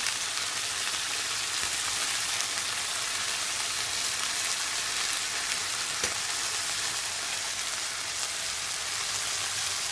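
Napa cabbage stir-frying in a pan, sizzling steadily. A single short knock comes about six seconds in.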